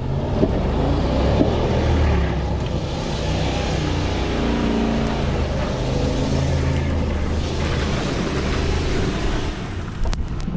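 Chevrolet Silverado pickup's engine running and revving as the truck drives, its pitch rising and falling. A rushing noise sits over the middle few seconds, and there is a sharp click near the end.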